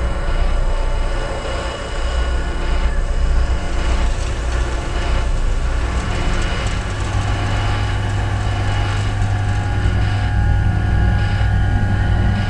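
Ambient sound-art score: a dense drone of many sustained tones over a wash of noise, with a deep low hum coming in strongly about seven seconds in.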